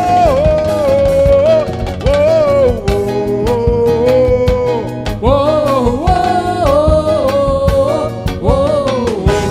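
Upbeat worship band music: a melody line rising and falling over a steady drum beat.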